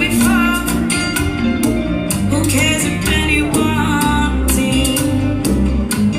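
Latin dance music with a singing voice and guitar over a steady beat.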